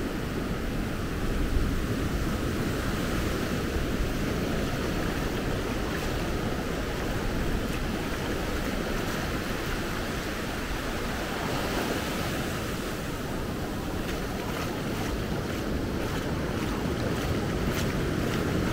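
Small sea waves breaking and washing up a sandy beach: a steady rush of surf.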